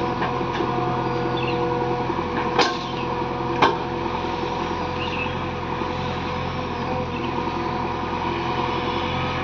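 JCB 3DX backhoe loader's diesel engine running steadily under work, with two sharp knocks about a second apart near the start.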